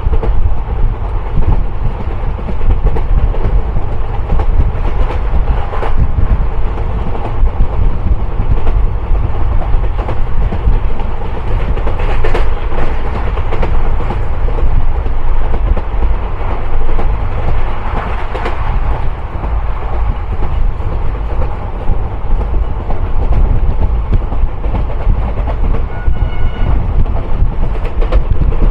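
Indian Railways passenger train running at speed, heard at an open coach doorway: a steady, heavy rumble of wheels on rails with a few sharper clacks over the rail joints.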